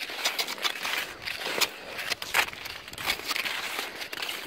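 Cross-country skis and poles crunching and scraping through snow, with irregular crackling crunches over a steady hiss, as a skier hauls a loaded pulk sled.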